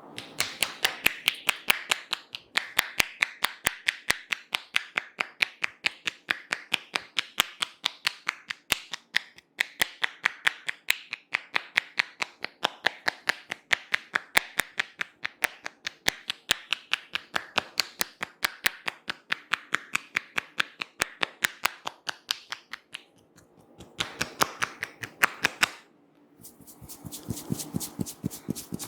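Hands tapping and slapping on a head in a percussive head massage: a fast, even series of sharp smacks. They break off briefly near the end, then resume as a denser, duller patter.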